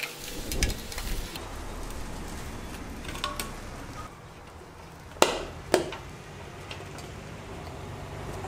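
Metal gallon paint can lid being pried off with a screwdriver, clanking and scraping in the first second or so, then two sharp metallic clicks half a second apart just after five seconds as the metal cans are handled. Wind rumbles on the microphone underneath.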